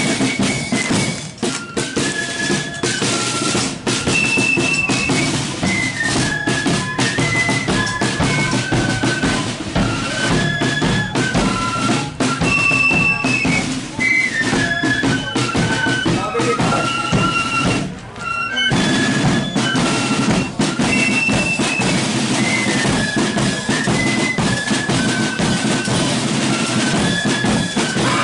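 Marching flute band playing a tune: flutes carry a high stepping melody over side drums and a bass drum, with a short break in the music a little past the middle.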